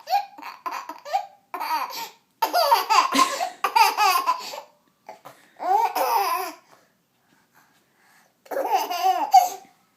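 Baby laughing at a fake sneeze, in about five bursts of giggling separated by short pauses, with a longer lull shortly before the last burst.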